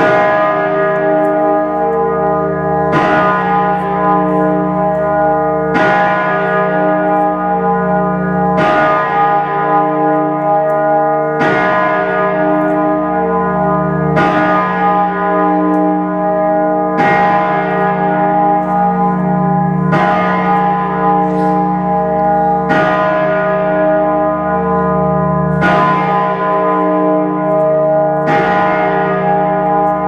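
Great Peter, York Minster's great bell, rung by rope, striking about every three seconds. Each stroke's deep clang and long hum ring on into the next.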